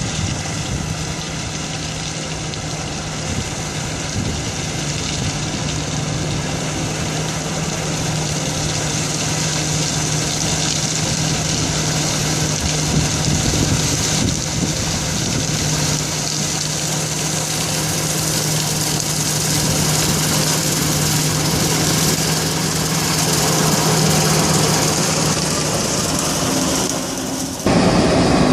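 A harvesting machine running steadily, with a constant engine hum under a wide, noisy rush of machinery. Near the end it cuts abruptly to a louder, different engine sound whose pitch falls.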